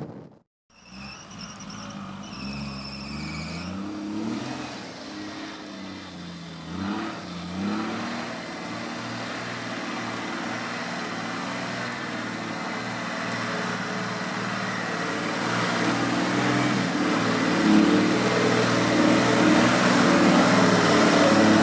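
Off-road vehicle engine revving up and down several times, then pulling under steady load and growing louder. A high whine runs alongside it and stops after about three seconds.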